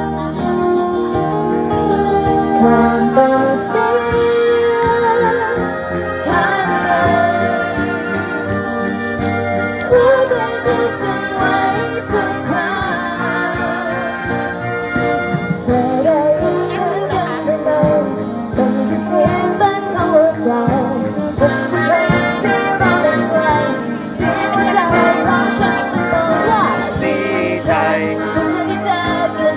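A woman singing a song into a microphone, accompanied by a live band that includes a saxophone and a keyboard, amplified through a PA speaker.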